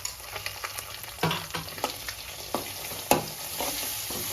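A freshly added garlic, onion, coriander and cumin paste frying in oil in a kadai, sizzling steadily, while a spoon stirs it and scrapes and knocks against the pan several times. The sharpest knock comes about three seconds in.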